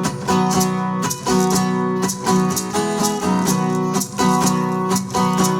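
Acoustic guitar strumming the instrumental introduction of a song, a steady chord rhythm.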